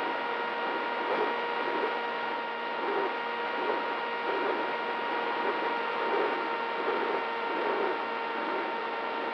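Brushless motor and propeller of a small FPV flying wing running at steady throttle, heard from the onboard camera: a constant whine of several even tones over a rush of airflow noise, with a lower wobble that swells a little faster than once a second.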